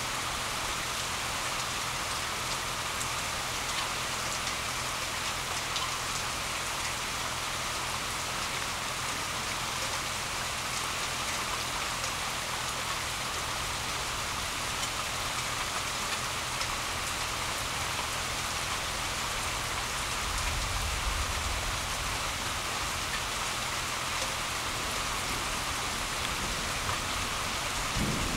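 Steady downpour of rain hissing on leaves, lawn and a wet road, with a brief low rumble about two-thirds of the way through.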